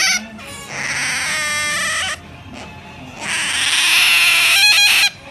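Otter pup giving two long, high-pitched squealing calls, each about two seconds, with a short pause between. The second is harsher and breaks into a quick stutter near its end.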